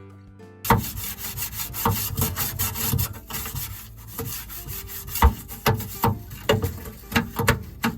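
A plastic refrigerator drawer scraping and knocking as it is wrestled out of the fridge: a loud run of rubbing with irregular knocks, the loudest about five seconds in.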